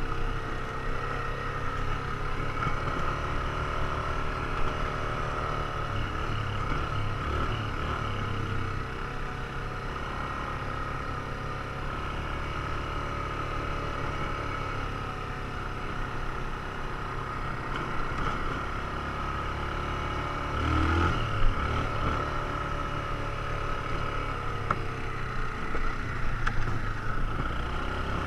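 ATV engine running through a ride, its pitch rising and falling as the throttle changes, with a single knock about three quarters of the way through.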